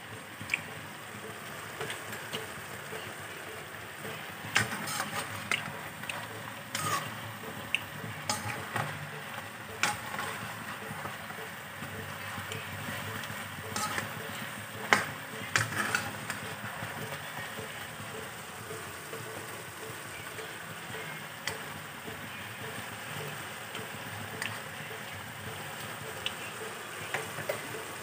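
Chicken adobo frying in its own rendered fat after the sauce has cooked down, a steady sizzle. A slotted spatula stirs it, with several sharp taps and scrapes against the pan in the first half.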